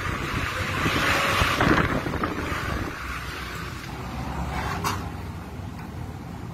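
Sandstorm wind blowing hard and buffeting the phone's microphone, swelling into a stronger gust about a second in and easing after two seconds. A single brief click comes about five seconds in.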